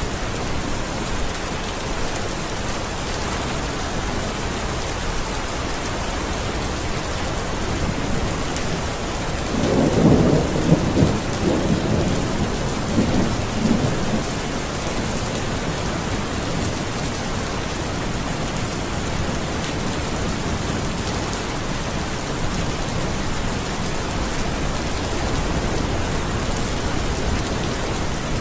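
Steady rain falling, with a roll of thunder rumbling for about four seconds around the middle.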